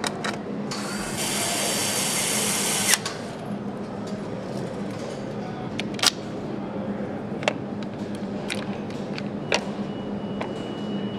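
Factory tool noise on a motorcycle assembly line: a power tool runs with a bright hiss for about two seconds, then a string of sharp, separate clicks and knocks of tools on metal parts over a steady hum. A thin high tone sounds briefly near the end.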